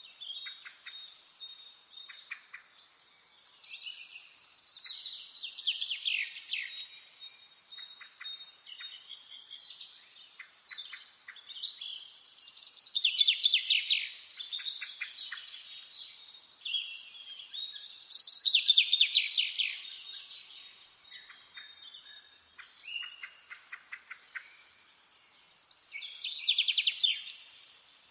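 Common chaffinch singing: four loud song phrases, each a quick run of notes falling in pitch and lasting about two seconds, repeated every five to eight seconds. Other birds chirp softly between the phrases.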